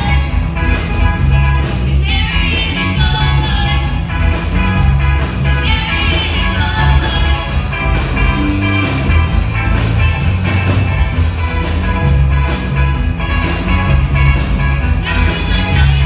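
Live rock band playing: drums, bass guitar, electric guitars and keyboard, with two girls singing the lead vocal in phrases. The singing thins out in the middle and comes back strongly near the end.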